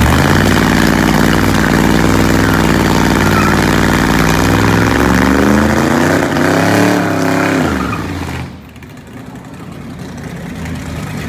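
1955 Dodge's 318 V8 revving hard through a burnout, the rear tyre spinning and smoking; the revs climb and then fall back near the end of the burnout. About eight and a half seconds in, the sound drops abruptly to a quieter, more distant engine.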